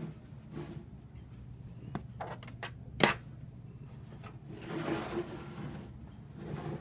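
Handling knocks and clicks as an unplugged box fan is turned around on a surface, with one sharp knock about three seconds in and a few lighter clicks and bumps around it.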